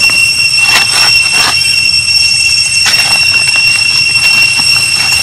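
A steady high-pitched whine with a fainter higher overtone, broken by a few brief noises about a second in and again near three seconds.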